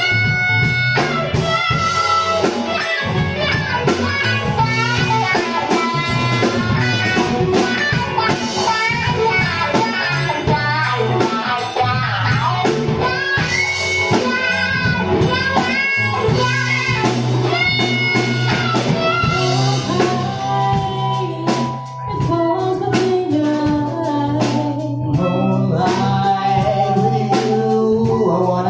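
Live funk and soul band playing: electric guitar over bass, drum kit and keyboard. A woman's voice sings near the end.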